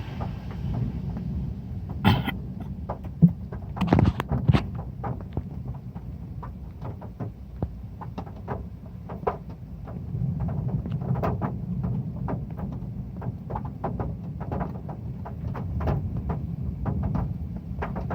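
Raindrops striking a metal roof: irregular sharp taps over a steady low rumble, with a cluster of louder hits about two to four and a half seconds in.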